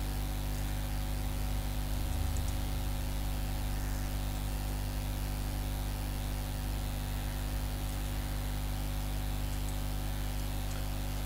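Steady electrical hum with hiss: background noise of the recording setup, a stack of unchanging low hum tones under an even hiss.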